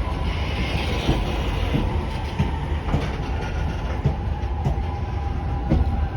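Freight train of Koki container wagons behind an EH500 electric locomotive rolling past at low speed, wheels clacking over rail joints in an uneven run of knocks over a steady low rumble.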